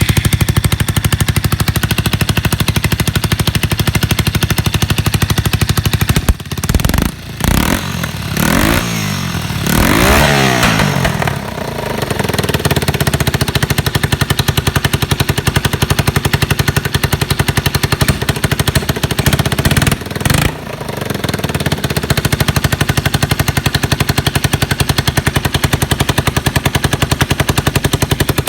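Yamaha TW200's air-cooled single-cylinder four-stroke engine idling with a steady, rapid exhaust beat. It is blipped with the throttle a few times about 6 to 11 seconds in and once briefly near 20 seconds, rising and falling in pitch before settling back to idle. It runs with no abnormal noise, as the seller states.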